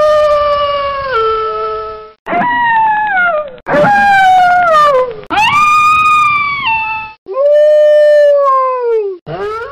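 Wolf howling: a series of about five long howls in quick succession, each held and then falling in pitch at the end. Each howl breaks off abruptly.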